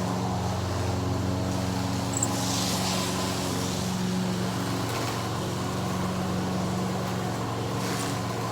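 Steady drone of a small petrol engine running at constant speed, a lawn mower cutting grass, with a brief soft hiss about two to three seconds in.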